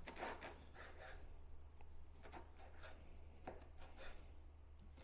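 Kitchen knife slicing through a cooked chicken breast onto a plastic cutting board: several faint, irregular cuts and taps.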